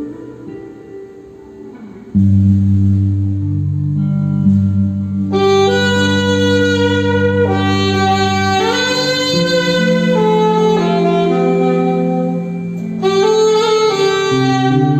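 Instrumental band music of long held notes. A loud low sustained part comes in about two seconds in, and a higher melody line joins a few seconds later.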